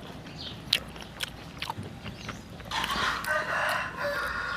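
A rooster crows once, starting a little past halfway and lasting nearly two seconds. Before it come a few sharp clicks from chewing.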